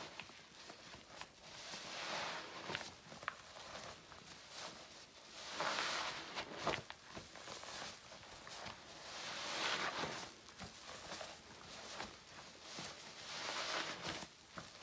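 Soapy sponge soaked in floor cleaner being squeezed, squelching and crackling with foam. It comes in four slow swells about four seconds apart, with small wet clicks between them.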